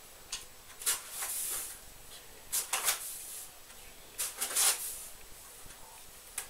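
A bag rustling as sugar is shaken out of it into a mixing bowl, in several short bursts.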